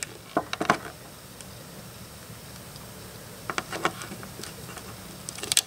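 Light clicks and taps of small plastic parts as fingers handle a LEGO minifigure and twist its head on the neck stud, in small groups about half a second in, around four seconds in and near the end, over a steady low room hum.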